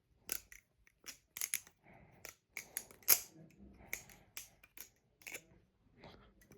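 Metal balisong trainer being flipped: irregular sharp clacks of the handles swinging shut and striking each other and the blade, a dozen or so over a few seconds.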